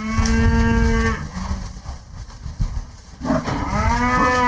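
Cattle mooing: one long moo ends about a second in, and a second moo starts a little after three seconds, rising in pitch and then held.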